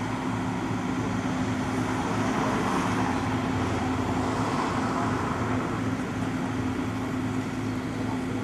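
Wheeled excavator's diesel engine running steadily with a constant low hum, while a soft hiss swells for a few seconds in the middle.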